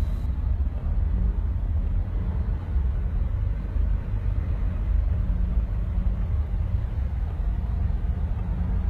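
Steady low rumble of a car driving, its engine and road noise heard from close by.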